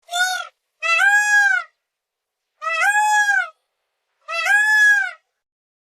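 Peacock calling four times: a short call, then three longer calls of about a second each, each rising and then falling slightly in pitch.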